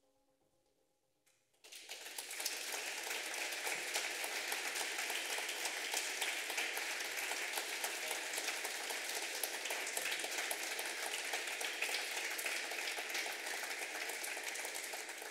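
Audience applauding. The clapping breaks out suddenly about a second and a half in, just after the last faint notes of the piece die away, and goes on steadily.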